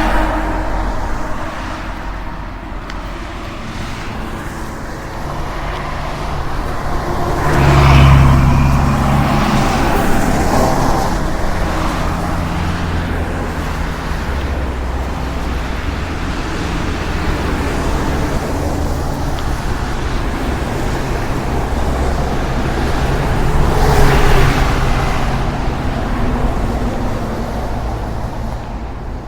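A truck's engine running steadily amid road traffic noise. Two louder swells about eight seconds in and again near the end sound like vehicles passing, and the sound fades out at the close.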